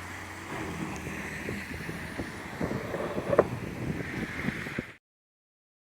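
Wind buffeting a phone microphone over a low outdoor background rumble, with a few faint knocks. The sound cuts off abruptly about five seconds in.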